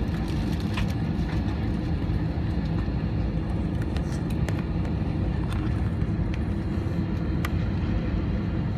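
Airliner cabin noise during takeoff: a steady, heavy low rumble of the jet engines and airframe, with a few faint clicks and rattles now and then.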